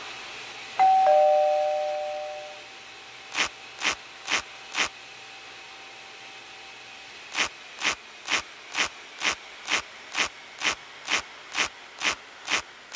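A two-note chime, a higher note then a lower one, fading over about two seconds. It is followed by quick, even brush-stroke swishes as a paintbrush sweeps milling dust off a dental milling machine's tool magazine: four strokes, a pause, then about a dozen more at roughly two a second.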